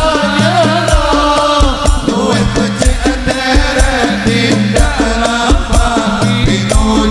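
Sholawat music played by a hadrah-style ensemble: hand drums and deep bass-drum strokes keep a steady rhythm under a wavering, ornamented lead melody, with heavy bass.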